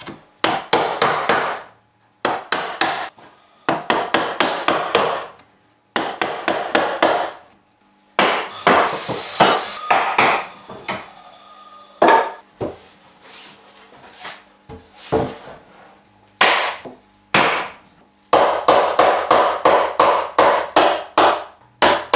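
Wooden mallet striking a wood chisel, chopping out the waste of a mortise in a wooden bench seat. It comes in runs of quick knocks, several a second, broken by short pauses, with a few single blows in the middle.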